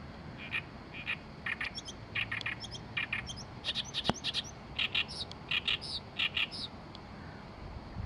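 Oriental reed warbler singing a loud, harsh, chattering song of short repeated notes. The song starts about half a second in and stops near the end. A single sharp click falls in the middle.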